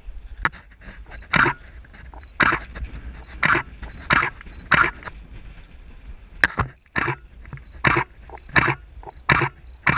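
A person breathing hard in short, quick, huffing breaths, about one every second or less, with a low wind rumble on the microphone.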